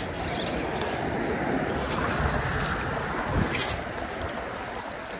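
Steady rush of a fast freestone river's current, with wind on the microphone and a few light clicks.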